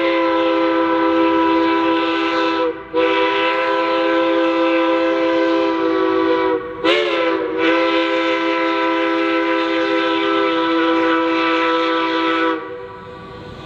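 Steam whistle of Durango & Silverton narrow-gauge 2-8-2 locomotive No. 473, sounding a chord of several notes in long blasts. It breaks briefly about three seconds in, then again near seven seconds with a short blast whose pitch slides up as the valve opens, and holds a final long blast of about five seconds before cutting off near the end. The long-long-short-long pattern is the grade-crossing signal.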